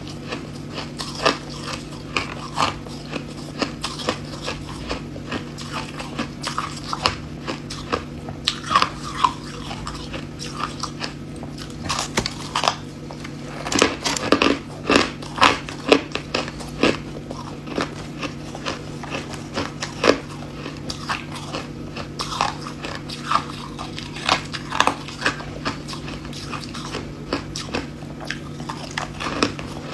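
Hard ice being bitten and chewed close to the microphone: a run of sharp, irregular cracks and crunches, thickest about halfway through, over a steady low hum.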